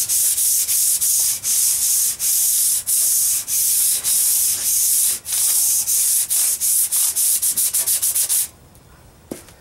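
Sandpaper rubbed by hand back and forth along the length of a rusty steel crosscut saw blade, scouring off rust and patina. A rapid run of scratchy strokes that quickens toward the end and stops about eight and a half seconds in.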